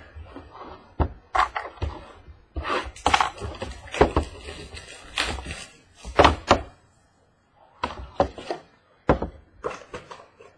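A 2013 National Treasures football card box being unwrapped and opened by hand: crinkling wrap and cardboard handling, with a series of sharp thunks and knocks as the box and its inner card box are moved and set down on the tabletop.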